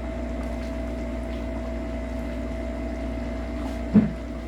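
Steady hum of a running kitchen appliance, holding a few constant tones. A single sharp knock about four seconds in.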